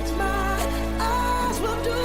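Pop/R&B music playing: held bass notes and chords under a sliding melody line, with the bass changing about one and a half seconds in.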